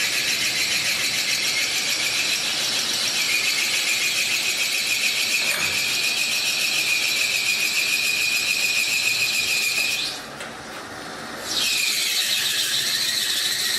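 Steady high-pitched mechanical squeal with a fast flutter, from a machine running in the shop. It drops out for about a second and a half near the end, then starts again.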